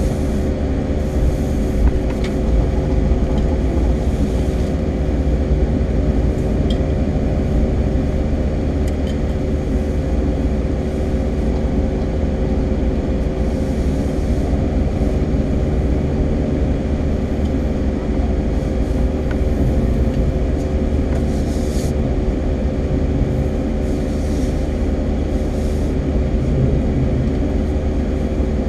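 Steady car-cabin noise while driving slowly: a low engine hum with a constant low rumble from the road.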